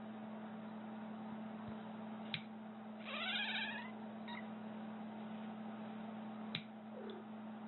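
A cat gives one rising meow about three seconds in, then a faint short falling cry near the end. Two sharp snips of nail clippers come before and after the meow, over a steady low hum.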